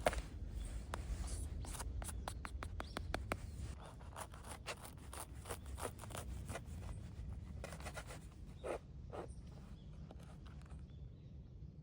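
A run of irregular short clicks and scrapes, dense at first and thinning out, over a steady low rumble; the clicks stop about eleven seconds in.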